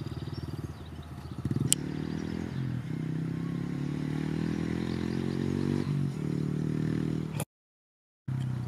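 Honda CRF110 pit bike's small air-cooled four-stroke single running as it is ridden, revving up about a second and a half in, with a sharp click just after. Its pitch dips and climbs again twice, and the sound cuts out completely for under a second near the end.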